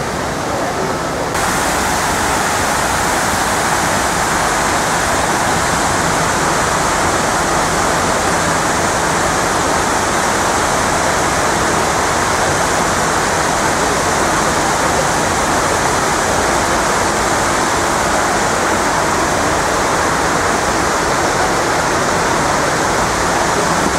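Steady, loud rushing of water cascading down the walls of the 9/11 Memorial pools. It gets louder suddenly about a second in.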